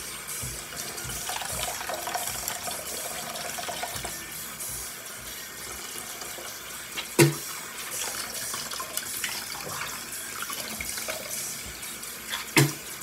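Bathroom sink faucet running, water splashing steadily into the basin. Two sharp knocks stand out, one about halfway through and one near the end.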